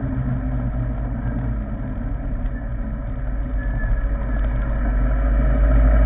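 Motorcycle engine running at low speed and then idling while stopped, a steady low rumble that grows louder from about five seconds in.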